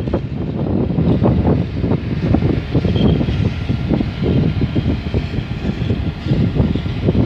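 PKP Cargo ET22 electric freight locomotive moving away along the station tracks, giving a loud, low, uneven rumble.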